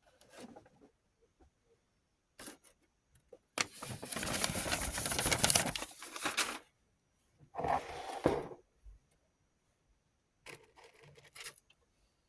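Rotary tool accessories and their plastic case being handled: bursts of rattling and scraping of small hard parts. The longest and loudest burst lasts about three seconds in the middle, with shorter bursts before and after.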